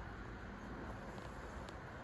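Steady background noise with a low rumble and no bird call, plus one faint click near the end.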